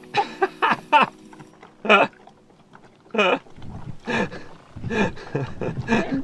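A woman's voice making short wordless sounds with her mouth full of food: a string of murmurs of enjoyment, some rising sharply in pitch, as she chews a bite of spring roll.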